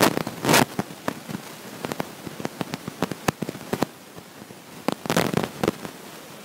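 Irregular crackling clicks and pops, with louder bursts of crackle about half a second in and again around five seconds in.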